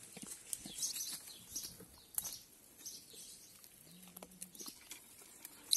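Small birds chirping in short repeated phrases, with scattered sharp clicks and snaps as goat kids nibble and step among dry twigs; the loudest snap comes about two seconds in.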